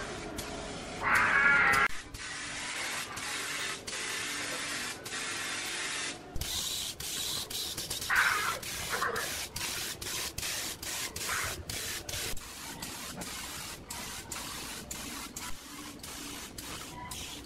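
Compressed-air paint spray gun spraying textured paint: a steady hiss that breaks into many short bursts from about six seconds on, as the trigger is pulsed. Two short high-pitched calls stand out over it, the loudest about a second in and another about eight seconds in.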